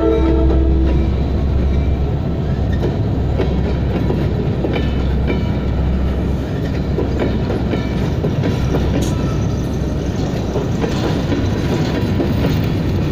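Freight train of covered hopper cars rolling past at close range: a steady low rumble of steel wheels on rail with scattered clicks over the rail joints. A train horn blast cuts off about a second in.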